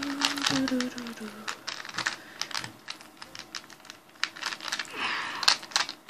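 Rubik's Cube being twisted quickly to scramble it: a rapid, uneven run of plastic clicks as the layers turn. A voice sounds briefly in the first second and a half.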